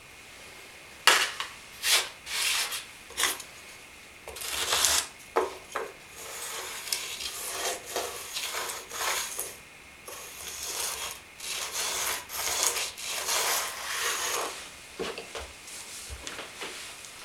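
A hand rubbing and scraping across a plywood subfloor along a seam, in a series of uneven strokes that start about a second in and die away near the end.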